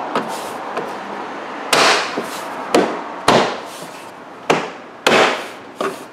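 Plastic trim cover on the inside of a Honda CR-V's rear hatch being knocked back into place by hand, its push-pin clips snapping in: about five sharp knocks at uneven intervals, with lighter clicks between them.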